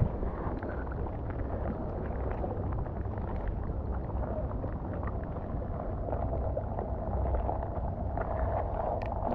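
Wind buffeting the microphone, a steady rumbling noise, with rain pattering over it.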